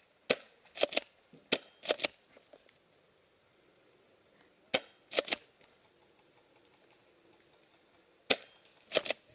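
Tokyo Marui M870 gas airsoft shotgun fired four times, each sharp shot followed about half a second later by the quick double clack of the pump being racked back and forward.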